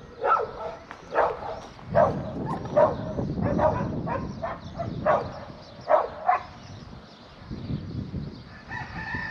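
Short animal calls repeated irregularly, about one every half second to a second over the first six seconds, with low gusts of wind rumbling on the microphone.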